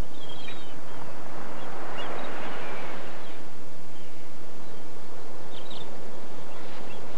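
Ocean surf washing onto a beach, a steady hiss of waves that swells about two seconds in, with a few short bird chirps near the start and again later.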